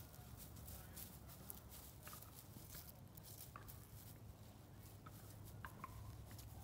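Faint outdoor quiet with light rustling and patter of puppies moving over grass and dry leaves, and a few short, faint high chirps, mostly in the second half.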